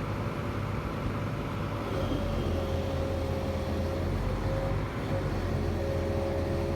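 Steady drone of a running engine, with a faint wavering whine on top.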